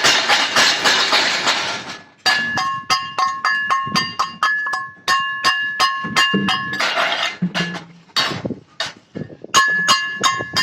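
Rapid metal-on-metal strikes on steel tubing, each leaving a metallic ring, with a brief pause about two seconds in.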